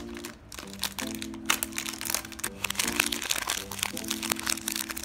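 Thin clear plastic bag crinkling in irregular crackles as it is peeled off a 3x3 speed cube by hand, over background music with held chords.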